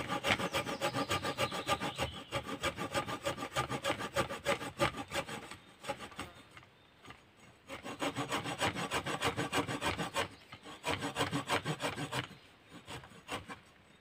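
Serrated saw edge of a multifunction steel shovel sawing through a branch about 8 cm thick, in quick rasping back-and-forth strokes. The sawing stops about six seconds in, starts again a second or two later, and slows to a few strokes near the end.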